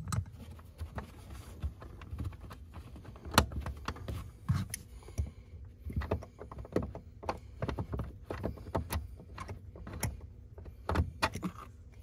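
Scattered clicks and small metallic rattles of a hand tool working loose the 10 mm screw at the base of a Mini Cooper S Convertible's rear seat, with a cluster of sharper clicks near the end.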